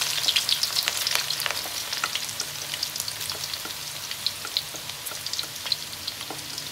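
Chopped garlic sizzling and crackling in hot oil in a wok as it is poured in, with many sharp pops; the sizzle is loudest at first and gradually eases off.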